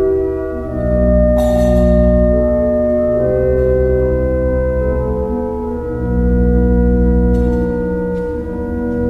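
Church organ playing slow, sustained chords over a deep bass, the chords changing every second or two.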